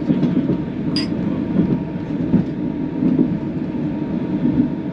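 Steady running rumble of a Thai sleeper train, heard inside the compartment. About a second in comes one short, high, ringing clink as two wine glasses touch in a toast.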